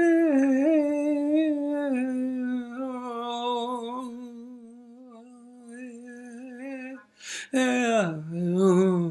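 A solo voice humming a slow wordless melody in long held notes with a wavering pitch. It breaks off briefly about seven seconds in, then resumes on a lower phrase.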